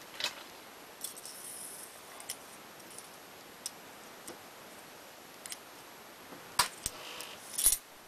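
Small metal silencer parts of a home-made integral .22 rifle suppressor clicking and clinking as they are picked up and handled, with two louder knocks near the end.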